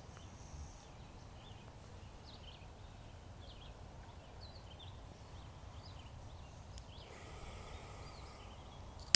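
Faint park ambience: scattered short bird chirps over a low steady background rumble, with a soft hiss for about two seconds near the end.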